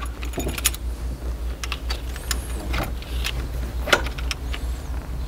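Scattered light metallic clicks and knocks as a new distributor is pushed down into a Rover V8 engine block and turned to engage the oil pump drive, over a steady low hum.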